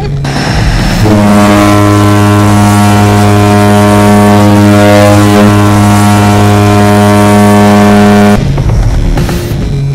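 Twin-turboprop jump plane, a de Havilland Canada DHC-6 Twin Otter, running its engines with a loud, steady propeller drone. The drone starts about a second in and cuts off abruptly near the end.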